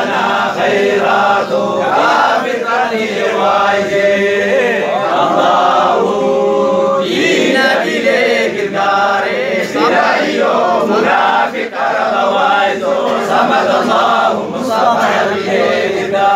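A group of men chanting a devotional Islamic zikr (menzuma) together, many voices at once in a continuous sung chant.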